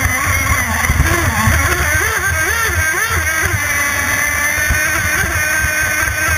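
CMB91RS two-stroke nitro-methanol marine engine of a radio-controlled offshore race boat running at high speed, its pitch wavering up and down a few times about two to three seconds in, over the rush of the hull and spray on choppy water.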